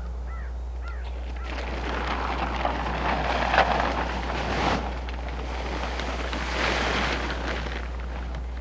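Rushing noise swelling and fading twice over a steady low hum, with a few short bird chirps near the start.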